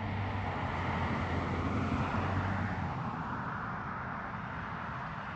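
Road traffic: a vehicle running past with a low engine hum, swelling about two seconds in and then easing off.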